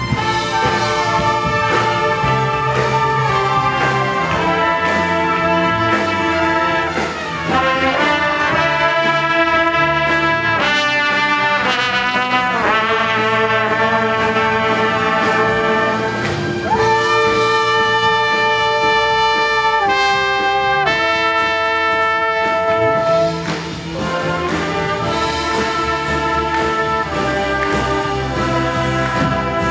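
Ensemble of trumpets playing sustained chords in several parts, with the pitches sliding down together about seven seconds in and sliding up again around sixteen seconds.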